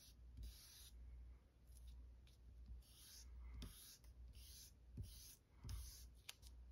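Kneaded eraser dragged over old comic-book cover paper in a series of short, faint rubbing strokes, about one a second, dry cleaning surface grime off the paper.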